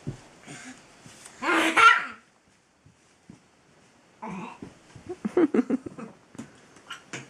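People laughing: a short loud burst about a second and a half in, then a run of short, choppy laughs from about four seconds in.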